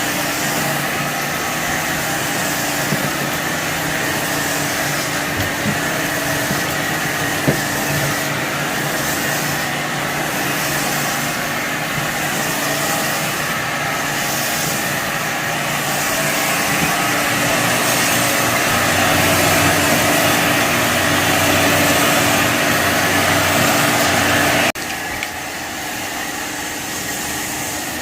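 Shark vacuum cleaner running steadily over carpet, with a few sharp clicks of debris being picked up. About 25 seconds in the sound cuts abruptly to a quieter, lower steady machine hum.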